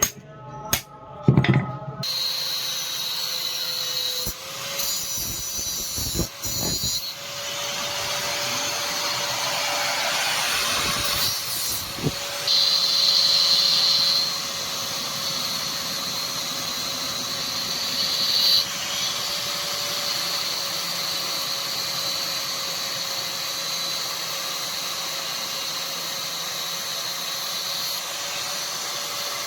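Electric power tool running steadily on the leaf-spring steel, a continuous hiss over an even motor hum, starting about two seconds in after a few sharp knocks.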